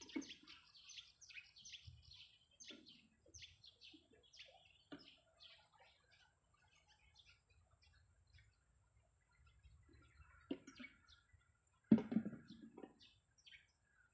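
Small birds chirping in quick, high, short notes, busiest in the first few seconds and thinning out after. A brief, louder, lower sound comes near the end.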